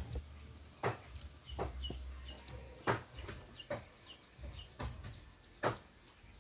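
Chopsticks clicking against porcelain rice bowls, several sharp separate taps while people eat. Short, high chirps from birds, typical of chickens, sound between the taps.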